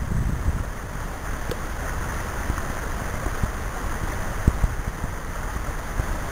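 Shallow creek water running steadily over rocks, with a few soft low thumps.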